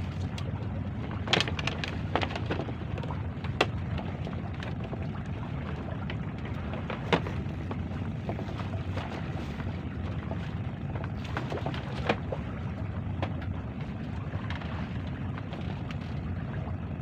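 Steady low outdoor rumble of wind and sea. A few sharp clicks and knocks stand out, twice within the first two seconds, again a little later, and once about halfway through.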